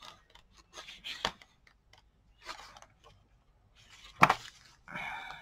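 Sheets of a scrapbooking pattern-paper pad being leafed through and handled: scattered paper rustles and light taps, with one sharper tap about four seconds in.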